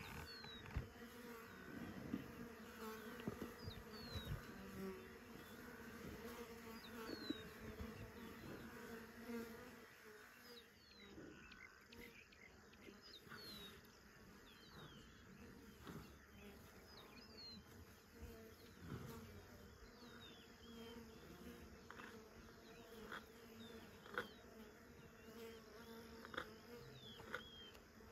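Flies buzzing faintly, the buzz wavering in strength, with many short, high, falling chirps and a few faint clicks over it.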